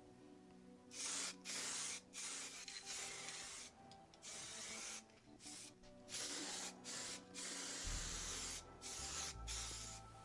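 Aerosol spray can of paint hissing in a series of short bursts with brief pauses, as a plastic wheel arch is given a coat.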